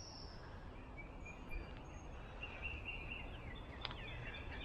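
Woodland birds singing and calling: faint short high whistles, then a run of quick downward-sweeping chirps in the second half, over a low steady background rumble.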